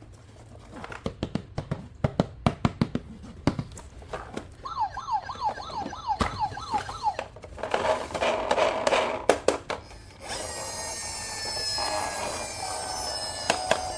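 Clicks and taps of plastic toy parts being handled, then a battery toy siren wailing in quick repeated sweeps for about two seconds. Near the end a tune starts playing.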